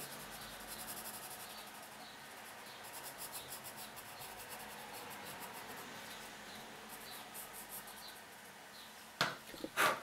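Derwent Graphic pencil scratching softly on paper in quick repeated strokes as a small area is shaded solid black.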